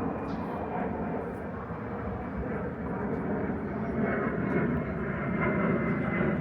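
Airplane engine noise overhead: a steady low rumble that grows a little louder in the last couple of seconds.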